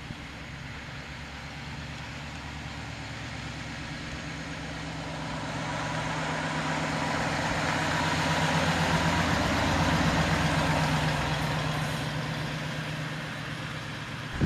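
1956 Ford Fairlane Victoria driving past at low speed: its engine and tyre noise on the concrete drive grow louder as it approaches, peak about nine seconds in, then fade as it pulls away.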